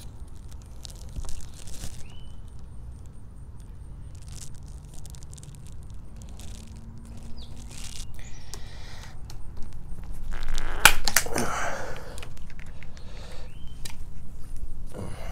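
Hand snips cutting through a vinyl Screen Tight cap strip: small clicks and snips, then after about ten seconds a louder crunching cut with two sharp cracks, lasting about a second and a half.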